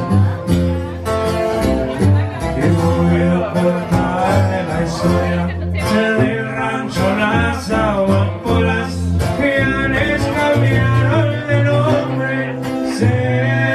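Music: a sung song with guitar and a strong bass line.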